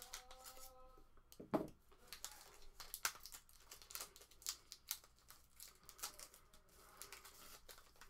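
Plastic wrapper of a Panini Dominion basketball card pack crinkling and tearing as it is pulled open by hand, with many small crackles and one thump about a second and a half in.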